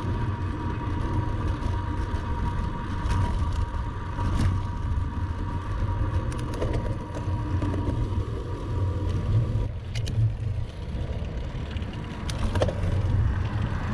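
Wind noise on the microphone of a bicycle-mounted camera, with road noise from riding on tarmac. A faint held tone fades out partway through, and a few light clicks come near the end.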